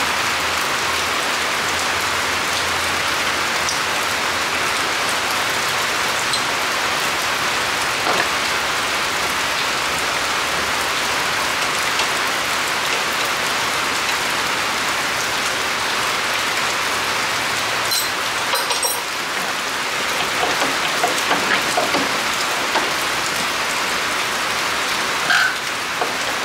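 Steady rain falling, an even hiss throughout, with a few light clicks and knocks in the last third.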